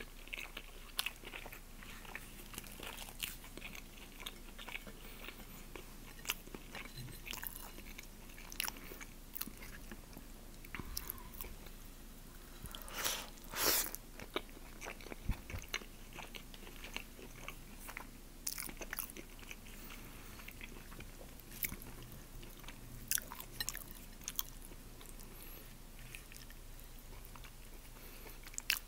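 Close-miked eating: a person biting and chewing food, heard as a run of short irregular clicks and mouth noises, two of them louder a little under halfway through.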